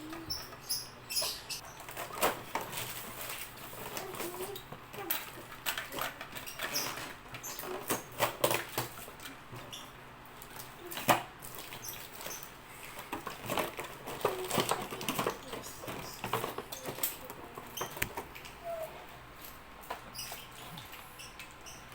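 Toy packaging being handled: irregular rustling and crinkling with scattered clicks and taps throughout.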